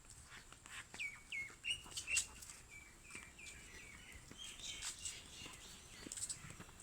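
A bird calling: a run of short chirps, each dropping in pitch, repeated about three a second for a few seconds, with a few faint clicks.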